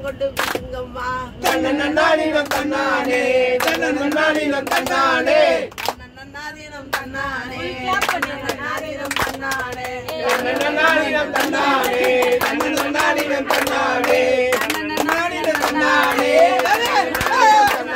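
A group singing a Tamil kummi folk song together while clapping their hands in a steady rhythm. The singing drops out briefly about six seconds in while the clapping goes on.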